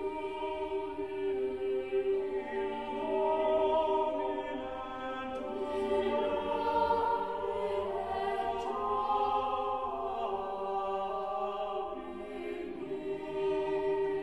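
Background choral music: voices holding long, slowly changing chords.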